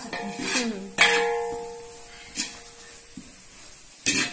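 Steel ladle scraping and knocking against a large metal pot while stirring roasting spice paste. A sharp clang about a second in rings on and fades over about a second, a lighter knock follows a little after two seconds, and another clang comes near the end.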